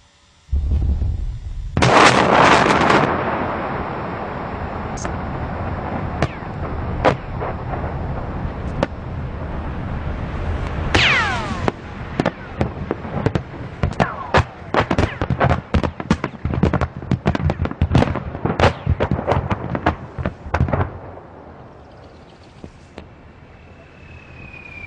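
Mass detonation of about 100 tons of disused artillery munitions. A low rumble starts, then a very loud blast crack hits about two seconds in and leaves a long rumble. Many sharp cracks and pops and a few falling whistles run through it for some twenty seconds before it dies away.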